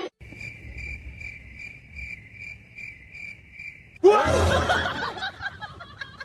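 A cricket chirping, a steady high chirp repeated evenly about two and a half times a second, which stops nearly four seconds in. It is followed by a sudden loud burst of sound with gliding pitch that trails off.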